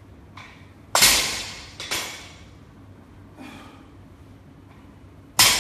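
A weightlifter's sharp, forceful exhales during barbell deadlift reps: two loud breaths about a second in and just under two seconds in, each fading away, then a short one near the end that cuts off abruptly.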